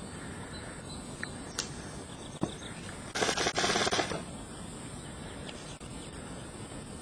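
Airsoft gun firing one rapid full-auto burst of about a second, some three seconds in. It follows a few single sharp clicks, over a steady hiss.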